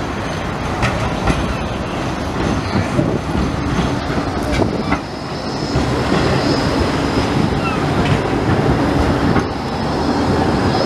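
Bombardier Flexity 2 tram running on street rails as it approaches and passes close by. A steady high whine joins in about halfway through.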